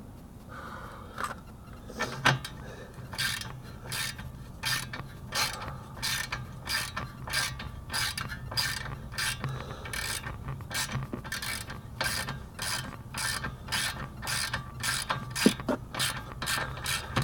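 Hand ratchet wrench being worked back and forth on a nut, a short burst of pawl clicks about twice a second.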